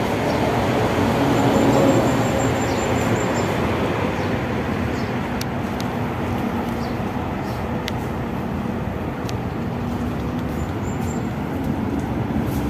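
Steady rumble of road traffic, swelling about two seconds in.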